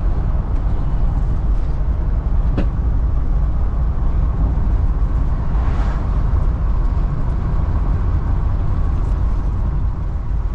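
Steady low rumble of a moving vehicle, engine and road noise together, with one sharp click about two and a half seconds in.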